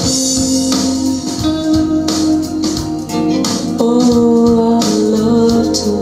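A recorded song played back through a pair of home-built (DIY) loudspeakers: an instrumental stretch with sustained chords over a steady beat.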